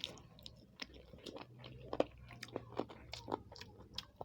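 A person chewing a mouthful of food, with a run of irregular wet mouth clicks and smacks.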